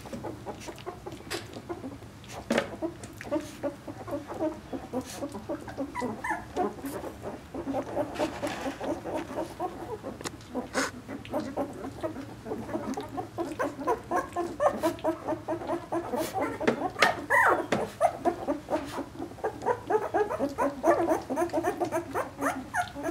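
A litter of two-week-old Vizsla puppies squeaking and whimpering, with many short, overlapping cries. The cries are sparse at first and grow busier after several seconds.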